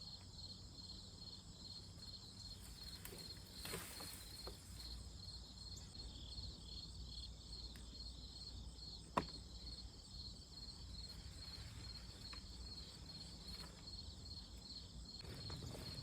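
Crickets chirping faintly in a steady, high-pitched pulsing trill, with one sharp click about nine seconds in.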